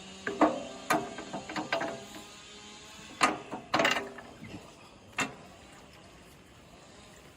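A run of sharp metallic clanks and clinks, about a dozen in the first five seconds, each ringing briefly, then only a low background hiss.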